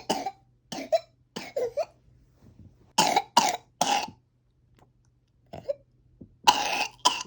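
A toddler with a cough cold coughing repeatedly in short, harsh bursts, with a run of three about three seconds in and two more near the end.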